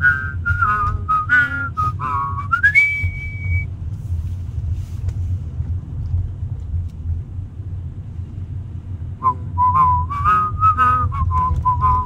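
A person whistling a train on-board chime melody over the steady low rumble of a car in motion, heard from inside the car. The phrase ends a few seconds in on an upward slide to a held high note, breaks off for about five seconds, then the whistling resumes with another phrase near the end.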